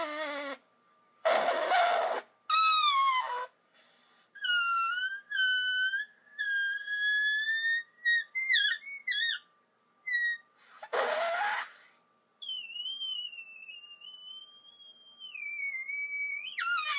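A person making shrill, high-pitched whistling tones that slide up and down in pitch in a string of separate notes, some short and some held for several seconds, broken by short breathy hisses, deliberately made as an annoying noise.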